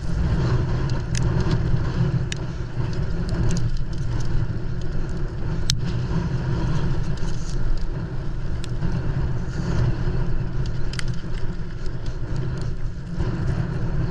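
Mountain bike descending a rough trail, heard from the rider's helmet camera: a steady low wind rumble on the microphone with tyre and frame noise, and scattered sharp clicks and knocks from the bike over rocks, the loudest a little before the middle.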